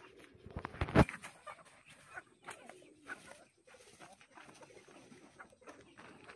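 Chickens clucking quietly, with a few short crackles and one sharp knock about a second in, the loudest sound.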